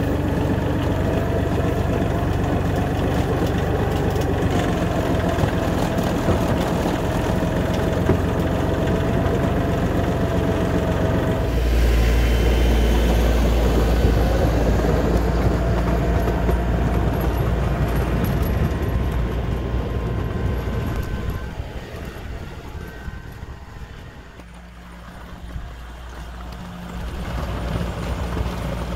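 LS MT235 compact tractor engine running while it pushes snow with a wide plow blade, with a steady whine over it in the first part. It gets louder about halfway through, drops away for a few seconds past two-thirds, then picks up again near the end.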